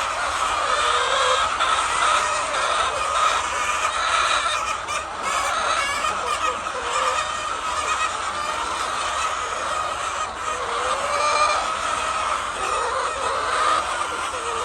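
Flock of hens clucking together in a dense, steady chorus of many overlapping calls.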